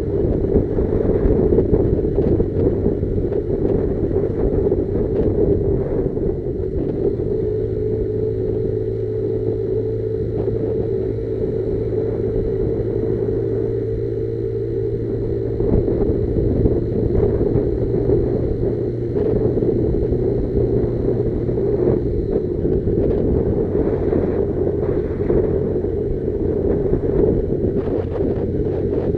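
Motorcycle engine running at a steady speed while riding, its pitch holding level with small shifts about a quarter of the way in and again near three quarters.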